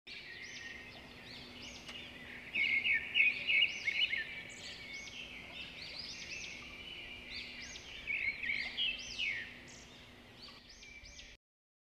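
Several birds chirping and singing together in quick, overlapping rising-and-falling calls, busiest about three seconds in and again around nine seconds. The sound cuts off suddenly near the end.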